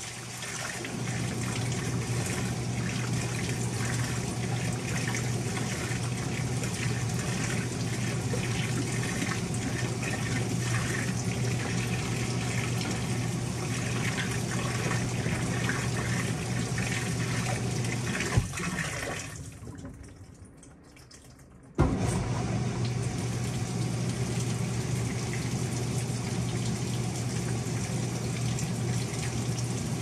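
Panasonic top-loading washing machine running: water pouring into the tub of clothes as it turns, over a steady low motor hum. About 18 seconds in there is a click and the sound fades away for a few seconds, then it cuts back in suddenly with a sharp click.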